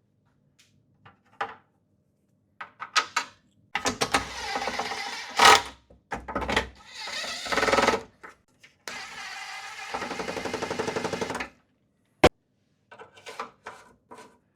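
Power drill driving sheet metal screws into a lawn mower's recoil starter housing, in several runs of one to two seconds with clicks between them.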